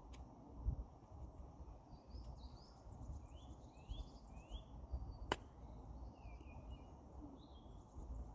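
Golf iron striking the ball on a short chip shot: one sharp click about five seconds in, with a fainter click just after the start. Small birds chirp in short rising calls through the middle, over a low rumble.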